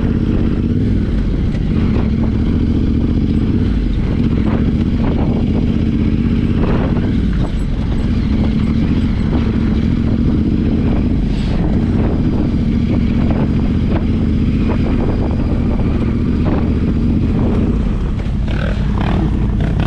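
Yamaha Ténéré 700's parallel-twin engine running steadily under way, with a continuous low drone and rumble.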